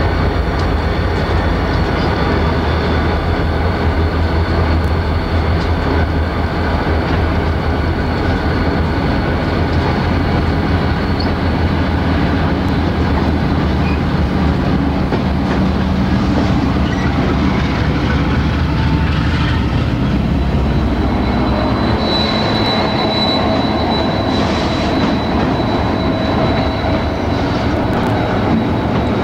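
Union Pacific diesel freight locomotives running as they come toward and pass beneath, their engines a heavy low drone. About two-thirds of the way through the drone falls away, and the double-stack container cars roll by with a steady high wheel squeal.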